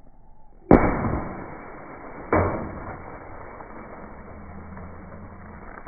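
A rubber-band-wrapped watermelon dropped from an upstairs window smashing on an asphalt driveway: one loud, sudden splattering impact about a second in, then a second, smaller thud about a second and a half later.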